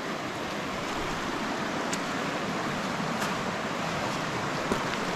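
Shallow creek rushing over rocks: a steady rush of water, with a few faint clicks.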